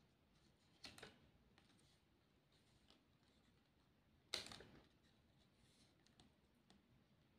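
Fingers pressing and rubbing paper stickers onto a paper plate: a soft papery click about a second in, a louder, sharper one a little after four seconds, and a few faint ticks between, over near silence.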